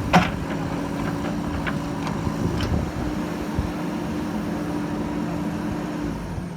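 Diesel engine of an earthmoving machine running steadily, with a sharp metallic clank just after the start and a few lighter knocks over the next few seconds. The engine sound drops away near the end.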